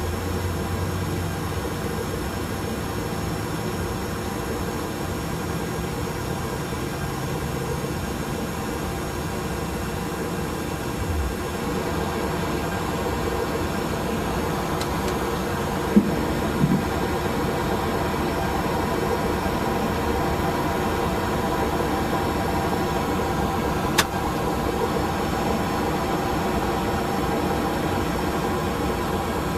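Steady cockpit noise of an Airbus A320: an even rush with a steady hum and several held tones. It is broken by two brief knocks a little past the middle and a single sharp click later on.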